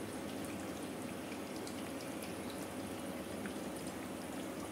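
Gas from a TX-H3000B hydrogen inhalation machine bubbling steadily through the water in its humidification bottles at full gas production, with a faint steady hum underneath.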